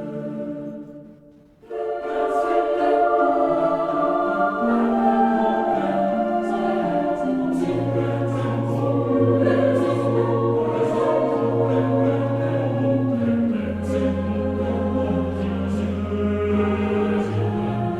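Choral music: a choir singing slow, held chords over sustained low bass notes. The music fades out briefly and a new passage starts abruptly just under two seconds in.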